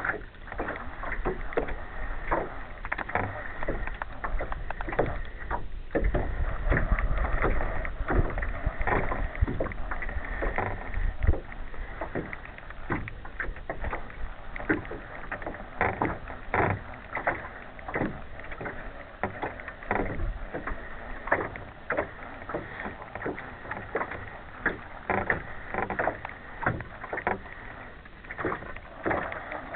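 Small boat on choppy water: water lapping and slapping against the hull in irregular splashes and knocks, with a low rumble from about six to eleven seconds in.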